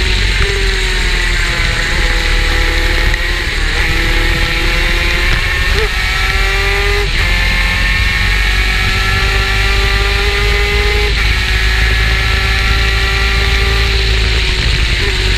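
A superkart's two-stroke engine at racing speed, its note repeatedly falling off and climbing again as the kart slows for corners and accelerates out, with a few sudden steps in pitch at gear changes. A heavy low rumble runs under it.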